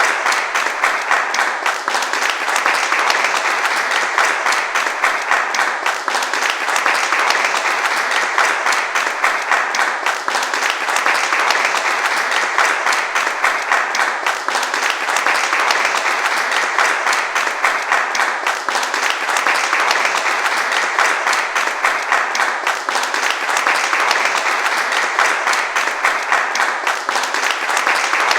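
Sustained applause from a large crowd: dense, steady clapping that holds an even level throughout.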